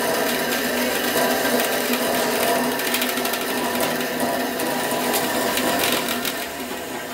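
Bandsaw running and cutting wood: a steady motor hum under a dense, uneven rasp of the blade in the stock. It eases off slightly near the end.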